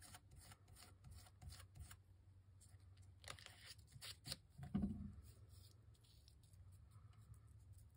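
Faint rustling and light tapping of paper being pressed and smoothed by hand, with a few sharper crinkles around three to four seconds in and a soft knock near five seconds.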